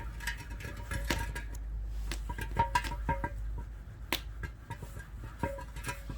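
Heated cast-iron pot lid being wiped down with oil while it is seasoned: scattered sharp clicks and pops.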